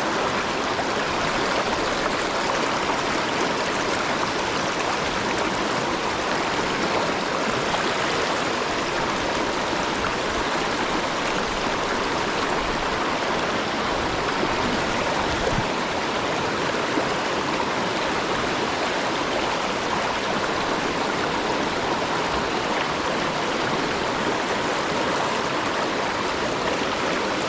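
Steady rush of a river current, an even unbroken wash of water noise.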